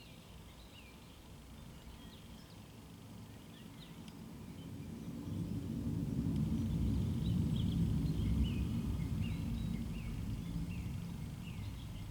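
Deep, unexplained rumble in the distance that swells up from about a third of the way in, holds strongest in the middle, then slowly fades. It is not a jet and not thunder, and brings no ground shaking. Small birds chirp throughout.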